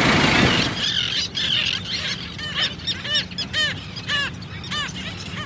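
A loud rushing noise for about the first second, then several birds calling: short, arched, honking calls in quick runs of a few per second, overlapping at different pitches.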